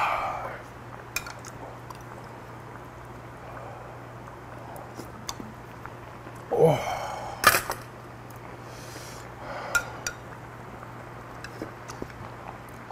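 Eating at the table: a loud satisfied 'ahh' right after a sip of hot spicy broth, a falling vocal exclamation about halfway, and scattered sharp clicks of a metal spoon against a small bowl, over a steady low hum.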